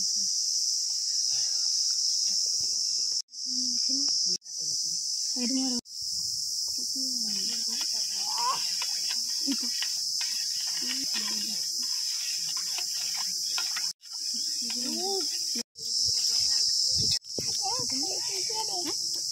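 Steady high-pitched insect chorus, cricket-like, that cuts out for a moment several times.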